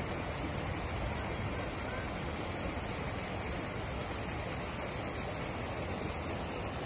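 Small waterfall pouring from a culvert into a pond, a steady rushing of falling water.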